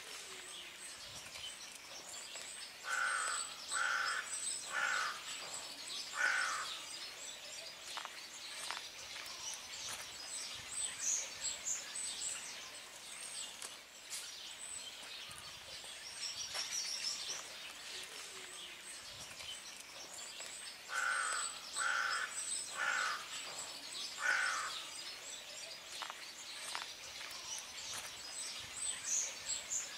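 A crow cawing in two runs of four harsh caws, about a second apart, with small birds chirping throughout.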